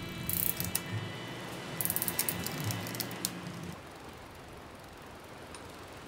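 Bicycle drivetrain turned by hand in a repair stand: the chain runs over a Shimano 6-speed freewheel and rear derailleur while the gears are tested, with two bursts of rapid freewheel ticking in the first half, then quieter.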